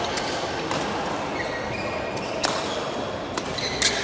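Badminton hall: sharp smacks of rackets hitting shuttlecocks, five or six in a few seconds with the loudest near the end, and short squeaks of court shoes on the floor, over a steady hall hum.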